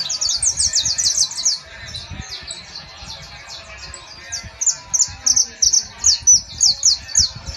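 Caged saffron finches (canarios criollos) singing: rapid series of quick, high notes that each drop in pitch, in a loud burst at the start and another from about the middle to near the end, with softer notes in between.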